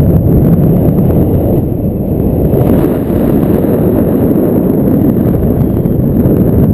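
Loud, steady wind noise from the airstream of a paraglider in flight buffeting the camera's microphone, heard as a low, rough rumble.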